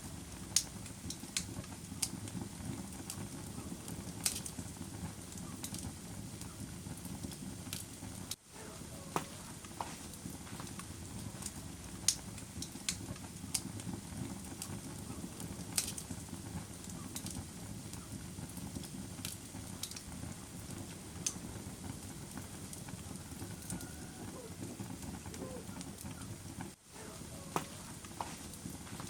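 Wood fire crackling in a fireplace: a steady low rumble of flames with irregular sharp pops and snaps, a few of them louder. The sound drops out briefly twice, about eight seconds in and near the end.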